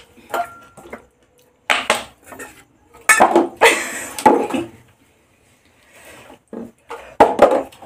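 A small plastic bottle partly filled with liquid, tossed in a bottle-flip attempt, knocking and clattering down on a hard floor several times, the loudest knocks about two seconds in. A woman laughs in the middle.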